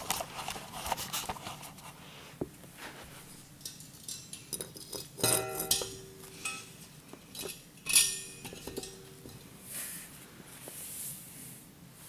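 Clicks, knocks and scraping as a brick and a propane heater's metal frame are shifted into place on concrete blocks, with two louder metallic clanks that ring briefly, about five and eight seconds in.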